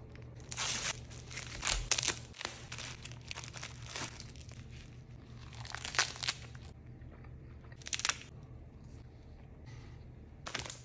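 Plastic film wrapper of a convenience-store salmon onigiri torn and crinkled in several short bursts, with crunchy bites into the crisp nori-wrapped rice ball. A faint low hum runs underneath.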